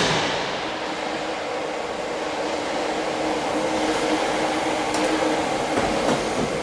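Steady mechanical hum with a steady low tone, and a few faint short clicks in the second half.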